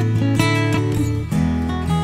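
Background music led by acoustic guitar, with notes plucked and strummed in a steady flow.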